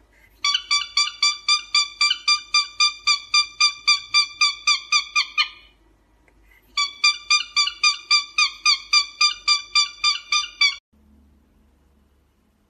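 Rapid high-pitched squeaking, about four or five squeaks a second, in two bouts of four to five seconds with a short pause between.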